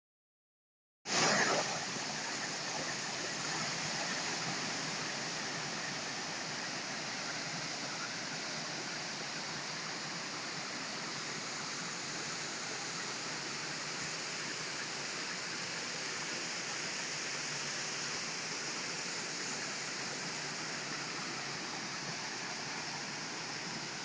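Waterfall plunging into a rock pool: a steady rush of falling water that starts about a second in.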